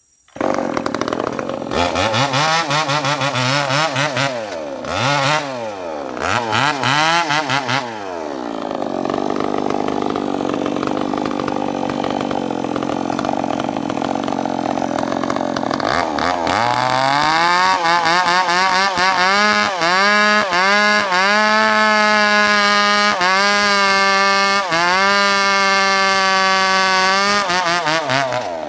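Two-stroke chainsaw ripping a log lengthwise into boards. It revs up and down for the first several seconds, runs lower and rougher under load in the middle, then holds at high revs with short dips through the second half.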